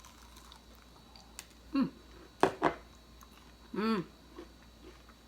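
Crispy breaded fried okra being bitten and chewed: a few sharp crunches about two and a half seconds in. Before and after them the eater makes two short voiced hums.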